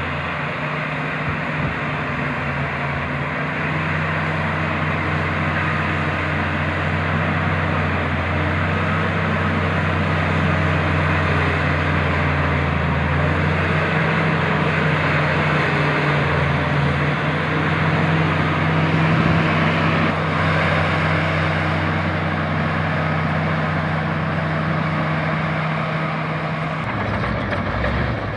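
LiuGong bulldozer's diesel engine running steadily while grading, a constant low drone under a loud mechanical rush. The engine note changes near the end.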